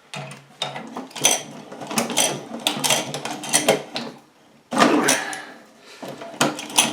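Hand-cranked carbon-steel meat grinder being turned on a piece of plastic model sprue: irregular cracking and crunching of the plastic against the metal auger, with a short lull about four seconds in. The plastic is being drawn in but jams instead of coming out chopped.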